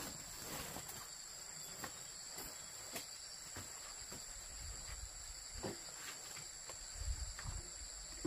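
Steady high-pitched chirring of insects, with a few light knocks and clatter scattered through it from belongings being handled and packed.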